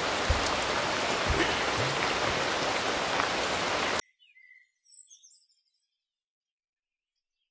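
Background music bed with a steady rain-like hiss and soft low notes about once a second, cutting off abruptly about four seconds in. A few faint short chirps follow, then near silence.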